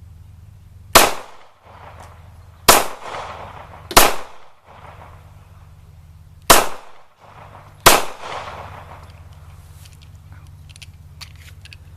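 Ruger LC9 9mm pistol fired five times at an uneven pace, each shot sharp with a trailing echo.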